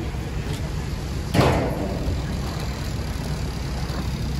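A single sharp, loud strike about a second and a half in, from a firefighter's hand tool hitting the roof during vertical ventilation. Under it runs a steady low rumble of fire engines running.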